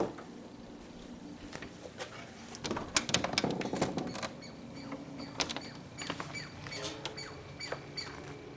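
A songbird calling over and over in short, high chirps, about two a second, starting about halfway through, after a few scattered clicks and taps. The repeated calling is taken by the recordist for a distress call or a call to keep other birds away.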